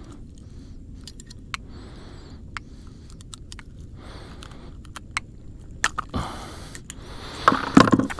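A small redfish being handled and unhooked. Scattered sharp clicks and rattles of the lure and hook, then louder flapping and rattling from about six seconds in as the fish struggles.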